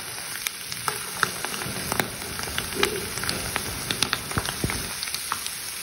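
Braising sauce sizzling in a pan of small whole fish: a steady hiss with many small crackling pops.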